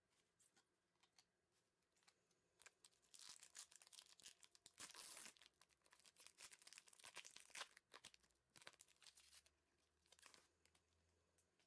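A sealed trading-card pack's plastic wrapper being torn open and crinkled by gloved hands. Faint crackling tearing starts about two and a half seconds in and is loudest around the middle, with a few lighter crinkles near the end.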